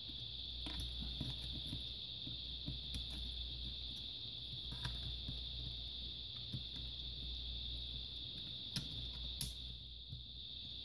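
Sparse faint clicks and taps of small laptop parts being handled and fitted into place, the sharpest two near the end, over a steady high-pitched whine and low hum.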